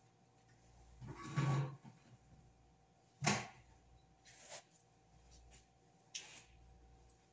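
A few scattered handling knocks and rustles as clothes are lifted and handled, with a duller bump about a second and a half in and a sharp click about three seconds in.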